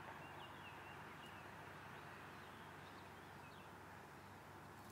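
Near silence: faint outdoor background hiss with a few faint, short high chirps scattered through it.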